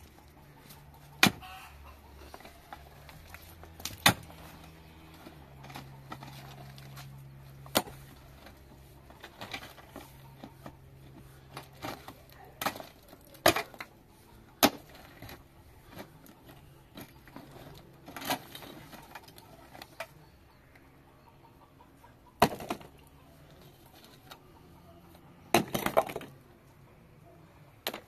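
Steel pickaxe striking stony earth and rocks: sharp, irregular blows a few seconds apart, some with a short scrape of loose stones and soil after them.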